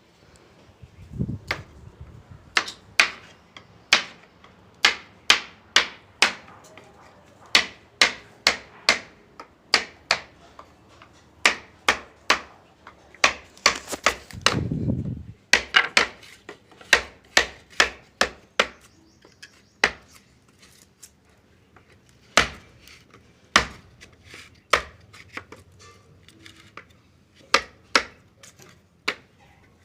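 Repeated sharp knocks of tools striking wood, an irregular beat of about one to two blows a second, with a rough scraping noise lasting about two seconds near the middle.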